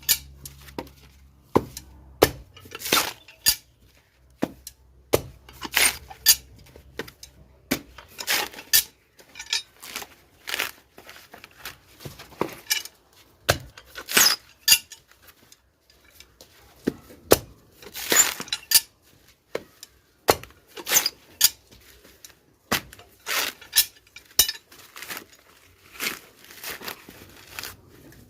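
Blade chopping and cutting into a sprouted coconut: an irregular series of sharp strikes, some in quick pairs.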